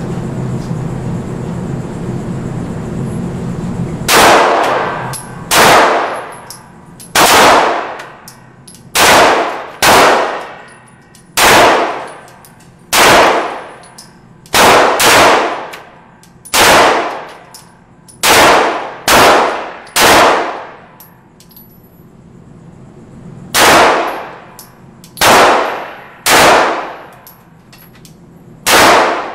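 Glock 19 9mm pistol firing a long string of shots, about one a second with a few quicker pairs, each crack followed by a ringing fade. The shots peak near full scale on a camcorder microphone. A steady low hum runs underneath during the first few seconds, before the shooting starts.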